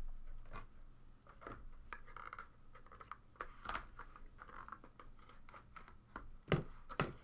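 Trading-card boxes and packaging being opened and handled: scattered scratching and scraping of cardboard and plastic, with two sharp clicks about half a second apart near the end.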